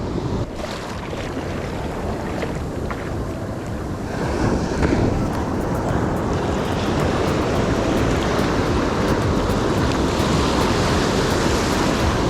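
Ocean surf washing onto a sandy beach, a steady rushing wash that grows louder about four or five seconds in, with wind buffeting the microphone.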